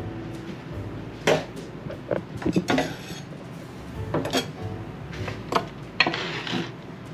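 Cutlery and dishes clinking and scraping as a freshly roasted beef roast is handled in the kitchen: a handful of short knocks and scrapes spread over several seconds.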